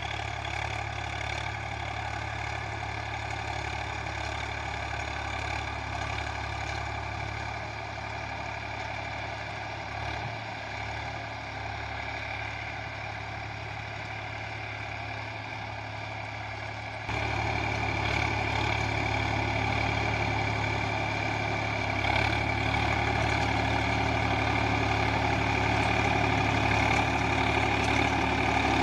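Swaraj 744 XT tractor's three-cylinder diesel engine running steadily while driving a rotary tiller through the soil. The sound steps up abruptly in loudness about two-thirds of the way through and stays louder.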